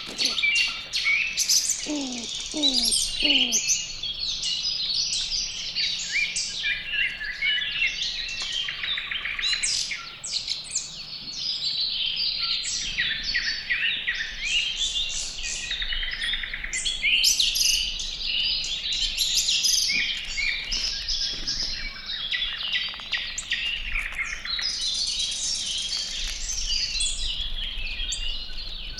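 Many wild birds chirping and singing together, with dense overlapping high calls and trills throughout. A few low falling calls come about two to three seconds in.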